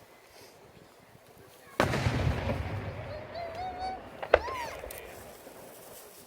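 Aerial firework shell bursting with a sudden loud boom about two seconds in, its rumble echoing and slowly fading, followed by a single sharp crack about two and a half seconds later.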